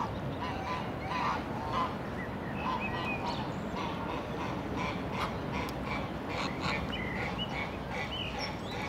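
Geese honking repeatedly in short calls, with higher calls of other birds mixed in, over a steady low background noise.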